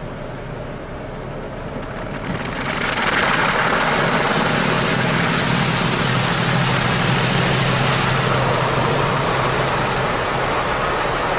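Automatic car wash machinery running: a steady motor hum, then about two and a half seconds in a loud, steady rushing hiss starts and keeps going.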